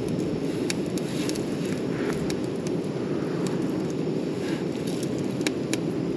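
Small twig-and-kindling campfire crackling with scattered sharp pops, over a steady low rush of wind noise.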